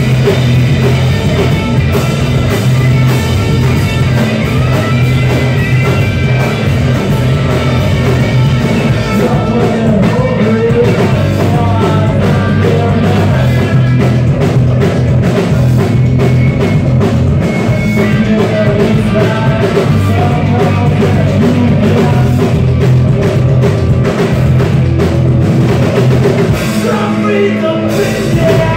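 A rock band playing live and loud, with electric guitar and a drum kit, the music running on without a break.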